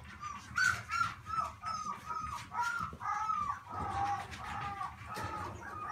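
Shetland sheepdog puppy giving a quick string of short, high-pitched whining yips, about two or three a second, while it plays.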